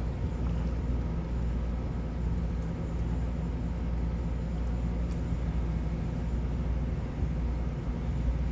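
Steady low rumble with a faint, even hum underneath and no distinct events.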